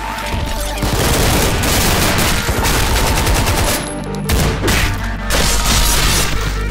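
Rapid, dense gunfire sound effects over a loud action-music soundtrack, breaking off briefly about four seconds in before more bursts.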